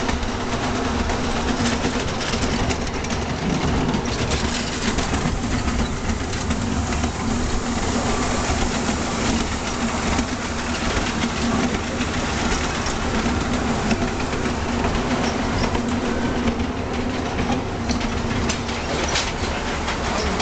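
Ride-on miniature railway train running along its track, heard from on board: a steady hum with the wheels clicking over the rail joints.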